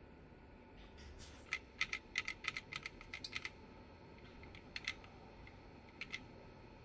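Faint typing on a computer keyboard: a quick run of about a dozen keystrokes, then a few single clicks later on.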